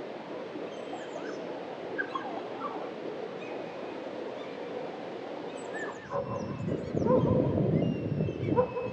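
River water rushing over a weir, with high bird chirps over it. About six seconds in the water sound grows louder and gulls start calling in short, loud calls.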